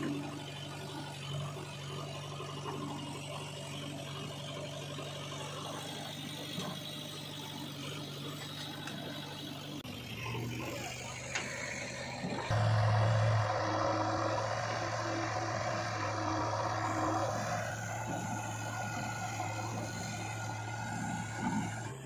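JCB 3DX backhoe loader's diesel engine running steadily while the backhoe digs. About twelve seconds in the engine note drops lower and gets louder as the arm works under load, easing off a little a few seconds later.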